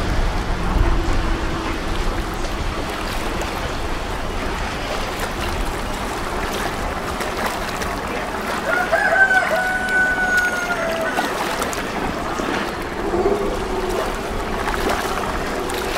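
Steady outdoor background noise with one long drawn-out call about nine seconds in, held for about two and a half seconds and falling slightly in pitch. A low steady hum comes in over the last few seconds.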